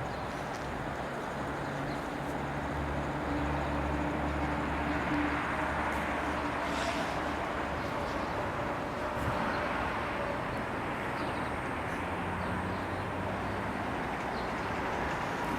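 Amtrak passenger train running by with a steady rumble, a few faint held hum tones over an even noise.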